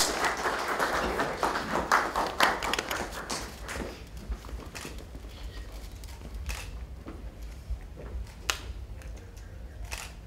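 Audience applause thinning out and dying away over the first three or four seconds, then scattered light clicks and taps.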